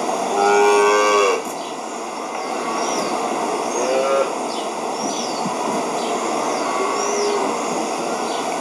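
A young dairy calf bawling loudly for about a second as it is caught and held for a lidocaine injection that numbs its horn buds before disbudding. It gives a second, shorter bawl a few seconds later and a weaker one near the end.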